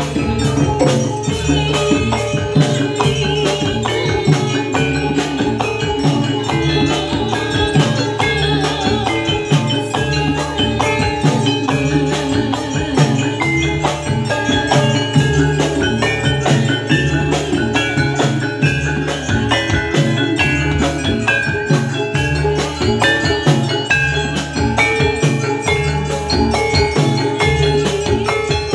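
Javanese gamelan playing jathilan music: saron metallophones struck with wooden mallets in a fast, steady beat over kendang hand drums and a drum kit.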